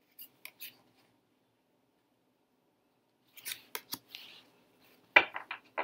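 Tarot cards being handled: brief papery swishes and clicks as cards slide off the fanned deck, a quick run of them about three and a half seconds in, and a sharper, louder tap just after five seconds as a card is laid on the pile.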